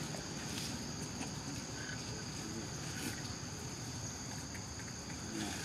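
Steady, high-pitched drone of insects, two even tones held without a break, with a few faint ticks and rustles underneath.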